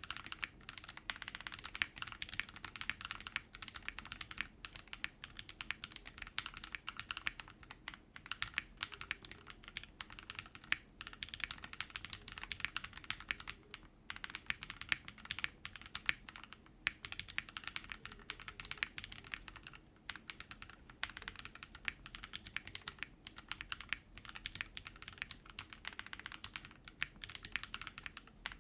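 Continuous typing on a mechanical keyboard: lubed Raed linear switches with switch films in a WT60-D Weirdflex with a polycarbonate plate and resin case, under Cherry-profile doubleshot PBT keycaps. Dense, uneven keystroke clacks with a few brief pauses.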